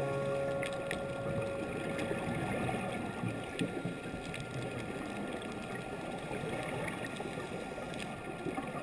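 Faint underwater ambience picked up through a GoPro's waterproof housing: an even hiss with a few scattered clicks. The last held note of the background music fades out in the first couple of seconds.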